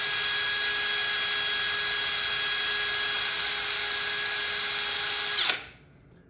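Power drill spinning a wire fitting-cleaning brush inside a brass sweat fitting, a steady whine with scrubbing hiss, cleaning the joint surface before flux and solder. It stops about five and a half seconds in.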